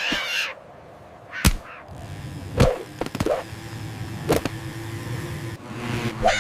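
A short whoosh, then about five sharp whip-like cracks spaced a second or so apart, with a steady hum coming in about halfway through.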